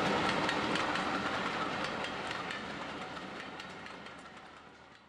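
A model steam locomotive's digital sound decoder (ESU LokSound V4.0) playing running-train sound, a noisy wash with regular clicks, fading out steadily.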